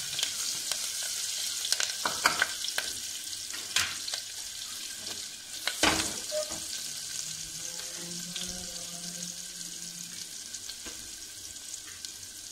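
Chopped garlic and green chillies with cumin sizzling in hot oil in an aluminium pressure cooker, stirred with a wooden spatula. There are a few sharp clicks in the first half, then a steady sizzle that slowly grows quieter.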